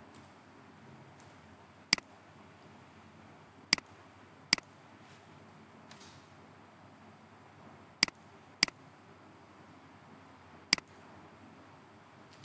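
Six sharp, single computer mouse clicks spaced irregularly, over faint steady room hiss.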